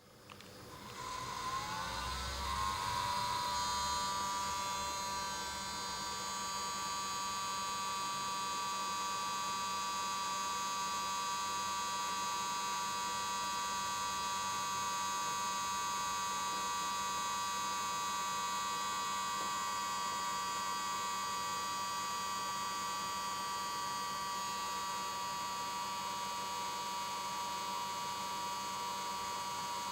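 Xtreamer media player's cooling fan spinning up at power-on, rising in pitch over the first couple of seconds, then running steadily with a terrible grinding whine made of several steady tones. This grinding at startup is a fault the player has developed after three months of use.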